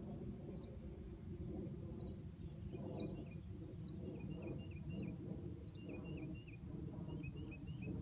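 Dusk field chorus of chirping insects and birds. A high, short chirp repeats about once a second throughout, and from about three seconds in, quicker, lower chirps come in little groups, over a steady low rumble.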